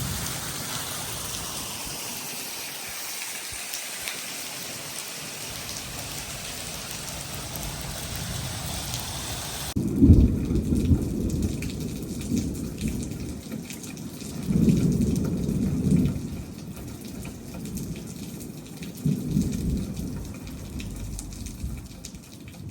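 Thunderstorm: heavy rain pouring down as a steady hiss. About ten seconds in the sound changes abruptly to lighter rain, broken by three low rolls of thunder.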